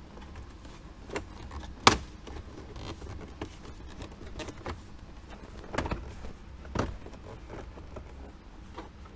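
Plastic dash trim bezel of a Jeep Wrangler JK being pressed into place over the dash: a few sharp plastic clicks and knocks, the loudest just before two seconds in, with light handling noise between.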